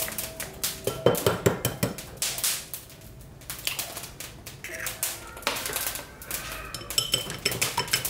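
Kitchen utensils and dishes clattering: a busy run of sharp knocks and clinks, a few ringing briefly near the end.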